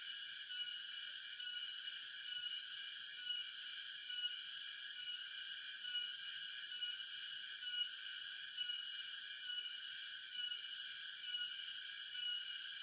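Chorus of insects in the surrounding forest: a steady, high-pitched buzzing that pulses evenly about twice a second.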